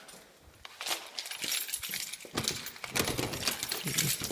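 Scattered clicks, knocks and light metallic rattles as a back door is opened and someone steps out through it, starting about a second in, with footsteps and handling noise on the phone.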